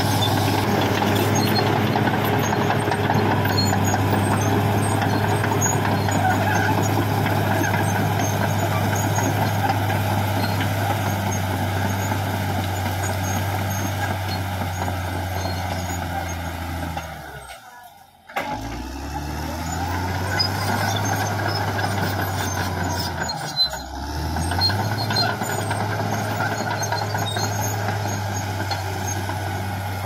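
Caterpillar D6R XL bulldozer's diesel engine running steadily. A little past halfway the sound briefly drops away and the engine speed climbs back up. A few seconds later it dips and rises once more.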